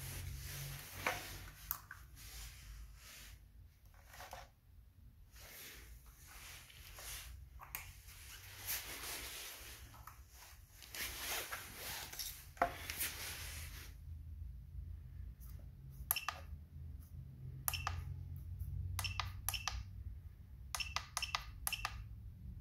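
Battery-tester clamp leads and cables being handled: rustling and scraping with a few knocks for about the first fourteen seconds, then a run of short sharp clicks.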